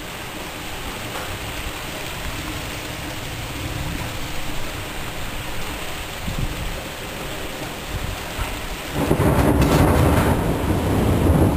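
Steady rain of a strong thunderstorm, with a loud low rumble of thunder breaking in about nine seconds in.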